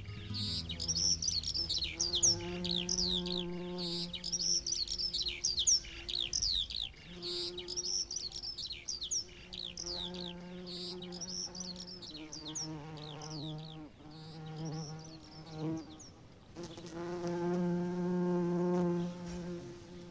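Birds singing with many quick high chirps, while an insect buzzes close by in bursts of a few seconds, its pitch shifting slightly. The birdsong stops about three-quarters of the way through and the buzzing is loudest near the end.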